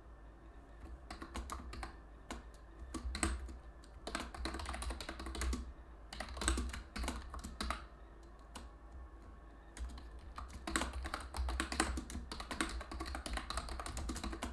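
Typing on a computer keyboard: two runs of quick key clicks, with a pause of about two seconds in between.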